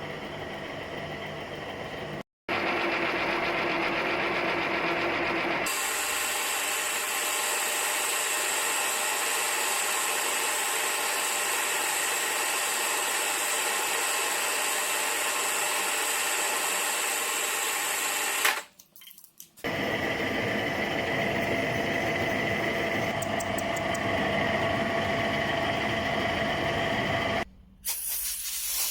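Power tools running steadily in four separate stretches, each cut off abruptly, with short gaps of quiet between them.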